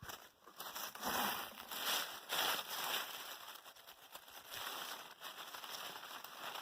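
Leaf mulch rustling and crackling in irregular surges as potato plants are pulled up by the roots and the leaves are dug through.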